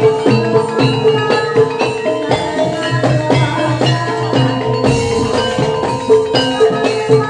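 Javanese gamelan-style ensemble playing the live accompaniment for an ebeg hobby-horse dance: struck keyed percussion rings out quick melodic notes over a steady, repeating drum pattern.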